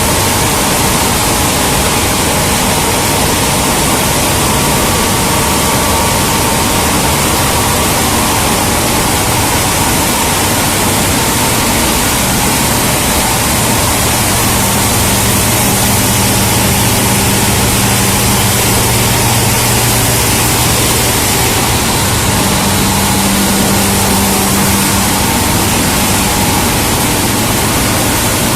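Plastic film recycling and washing line machinery running: a loud, steady noise with a low hum that grows stronger about halfway through.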